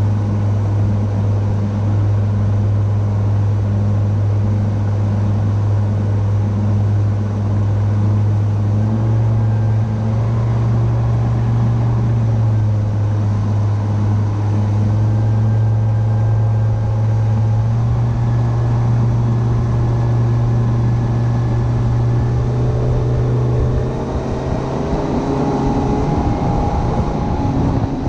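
A rigid inflatable boat's outboard engine running at speed, a loud steady drone. Its pitch shifts a few times, the level drops slightly about 24 seconds in, and rising tones follow near the end as the throttle changes.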